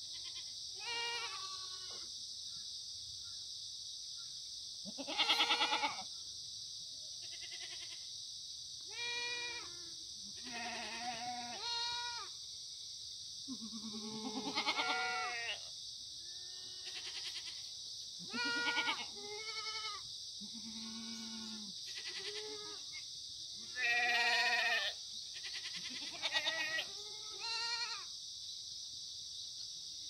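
Black goats bleating again and again, a dozen or so separate calls from several animals, some deep and some higher-pitched, over a steady high hiss.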